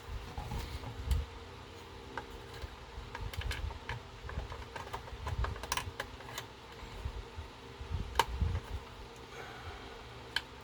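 Small irregular plastic clicks and taps, with soft low knocks, from a plastic scale-model car body and chassis being handled and worked apart, over a faint steady hum.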